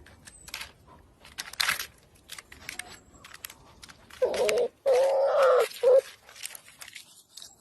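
An animal calling three times in quick succession about four seconds in: short pitched calls, the middle one the longest. Scattered light clicks and taps come before them.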